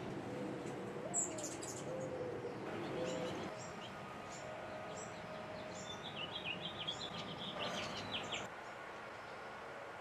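Small songbirds chirping: a sharp high chirp about a second in, then scattered high chips, and a quick run of short twittering notes in the second half that stops about eight and a half seconds in, over steady low background noise.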